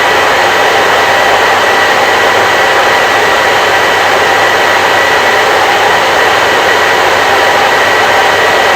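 Electric hair dryer running steadily, a constant loud whoosh of blown air with a high, steady motor whine.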